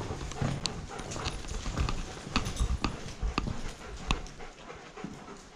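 Footsteps on the rough stone and debris floor of a disused railway tunnel: a sharp step about every half second over low handling rumble, thinning and quieter near the end.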